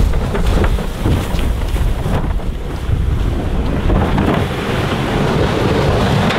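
Wind buffeting the microphone in a steady low rumble, with scattered short rustles and knocks from large woven seed sacks of plastic decoys being handled and loaded into a trailer.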